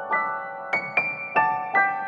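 Background piano music: single notes struck one after another, each ringing on and fading.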